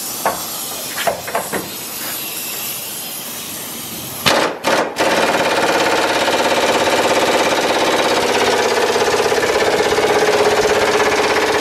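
Pneumatic impact wrench working a stubborn truck-bed bolt. A steady air hiss with a few clicks comes first, then short bursts about four seconds in, then continuous loud rapid hammering that doesn't let up. The bolt is not breaking free.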